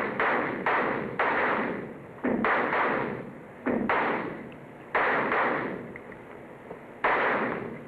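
Pistols of several shooters firing a ragged string of sharp shots at uneven intervals, some overlapping, each ringing out in a long echo off the indoor range's walls. The shots thin out, with a last single shot about seven seconds in.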